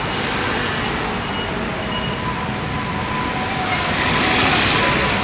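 Busy city street ambience: a steady wash of traffic noise, with faint steady tones joining about two seconds in.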